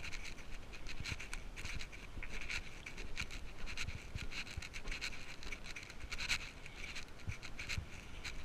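Footsteps climbing steel grating stairs, with irregular scratchy scuffs and low soft thumps.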